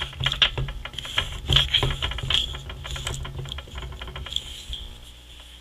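Rapid ratcheting clicks from the screw-on lever head of a home carbonating bottle being twisted by hand, thinning out and stopping near the end.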